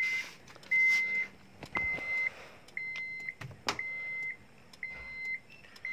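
Aftermarket push-button start kit's sensor beeper sounding a steady high beep about once a second, each beep about half a second long. It signals that the keyless sensor is still active after engine shut-off and will stop within some seconds once the sensor locks. A couple of short knocks sound partway through.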